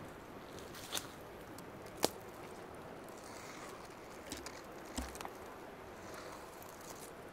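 A handful of sharp, irregular clicks and small crunches, the loudest about two seconds in and a close pair about five seconds in, over a steady faint outdoor hiss.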